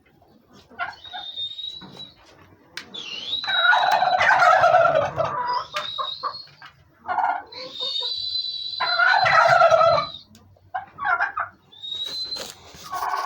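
Heritage turkeys gobbling: two long, loud gobbles, one about three seconds in and one about eight seconds in, with shorter calls between them. A thin, high whistling tone comes and goes alongside.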